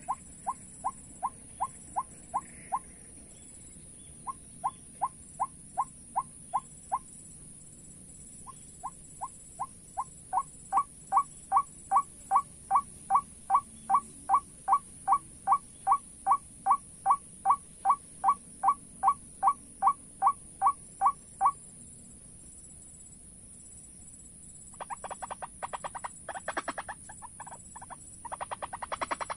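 White-breasted waterhen (ruak-ruak) calling: long runs of short, identical notes at about two to three a second, with brief breaks, growing louder in the middle run. Near the end, after a pause, a faster chattering burst of calls.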